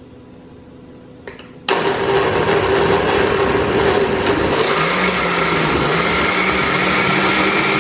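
Countertop blender switched on about two seconds in and running steadily, grinding whole roasted tomatillos, chiles and garlic in liquid into a salsa verde; its pitch climbs a little in the second half.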